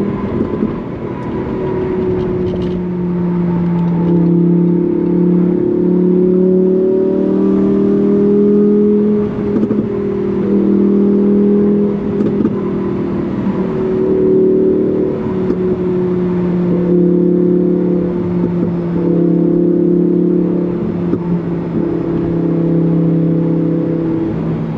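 Lamborghini Huracán Performante Spyder's 5.2-litre V10 engine and exhaust running under way at a fairly steady pitch, shifting slightly up and down now and then rather than revving hard.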